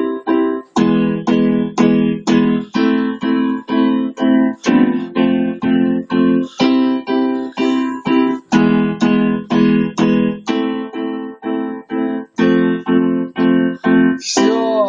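Instrumental music of a song's outro: an electric keyboard plays short, repeated chords, about three a second. A final, brighter chord comes near the end.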